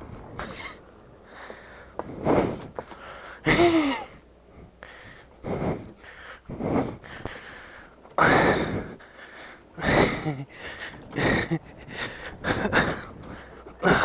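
A man's heavy, gasping breaths, about one every second and a half, with a short voiced groan about four seconds in: he is out of breath from the exertion of pushing a lawn mower.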